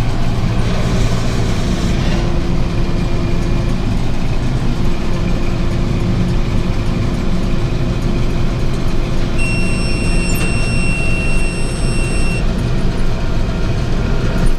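Tractor engine running steadily under load, pulling a round baler through hay. A steady high electronic beep sounds for about three seconds just past the middle.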